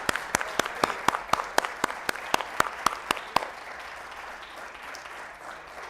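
An audience applauding. Sharp, close claps stand out for the first three seconds or so, then the clapping thins and fades away.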